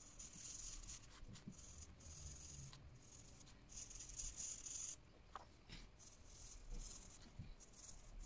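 Green felt-tip marker scribbling on paper, a faint scratchy hiss that comes in bursts of strokes with short pauses between them.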